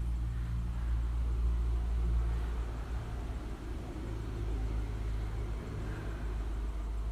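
A steady low mechanical hum and rumble, with a fainter wavering sound in the middle range joining it after about three seconds.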